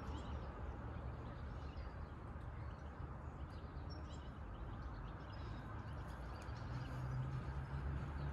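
Outdoor background: a low steady hum with faint scattered ticks and rustles, a slightly louder low drone coming in about six and a half seconds in.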